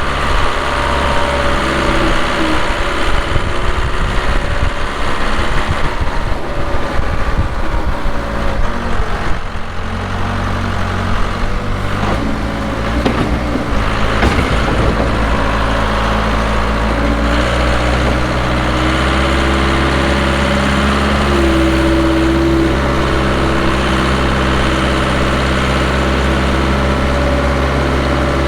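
Case 580SK backhoe's diesel engine running while the machine moves snow. Its note shifts up and down through the first half, then holds at one steady speed for the rest.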